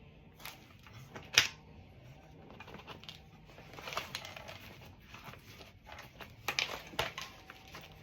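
Bicycle tyre being inflated with a hand pump: scattered clicks and knocks with short hisses of air.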